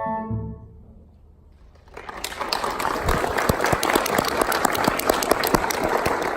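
Last notes of an orchestral song fading out, then, about two seconds in, a large audience breaks into sustained applause.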